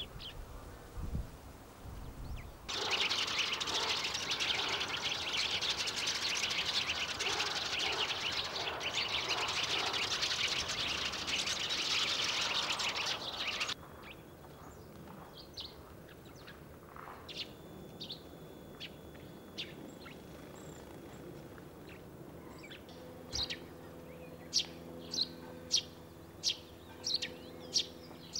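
Eurasian tree sparrows calling: a flock chattering densely for about ten seconds, then scattered single chirps, and near the end a run of loud repeated chirps, one or two a second.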